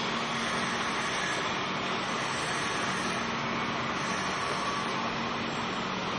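Electric arc welding: the arc giving a steady hiss over a faint low hum.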